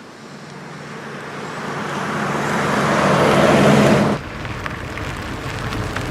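A car drawing closer, its engine and road noise growing steadily louder for about four seconds, then cut off abruptly. A quieter, low engine rumble with a few clicks follows.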